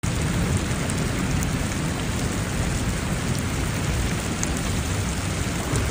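Heavy rain pouring down onto a flooded street: a dense, steady hiss with a strong low rumble beneath it.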